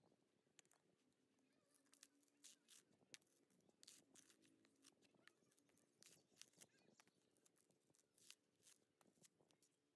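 Faint tearing and crackling of dry coconut husk being prised apart on a steel spike, with irregular sharp snaps as the fibres break.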